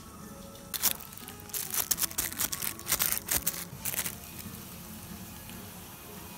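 Thin plastic bag over a hand crinkling in a quick run of crackles as it presses soft dough flat into a plastic kuih mould, lasting about three seconds from about a second in. Soft background music plays underneath.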